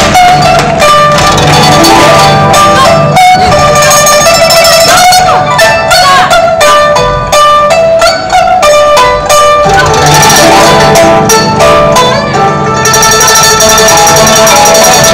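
Music: a fast, plucked-string melody with sliding, bent notes over a steady low pulse, accompanying a kung fu demonstration.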